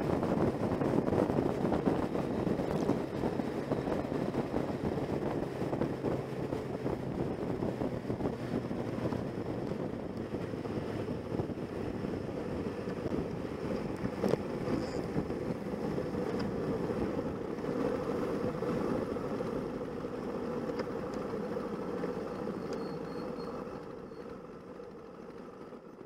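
A motorcycle cruising, recorded from on board: a steady engine drone mixed with wind rushing over the microphone, fading out near the end.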